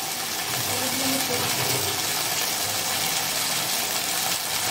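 Pieces of taro (gathi kochu) sizzling steadily as they fry in hot oil in a steel kadai.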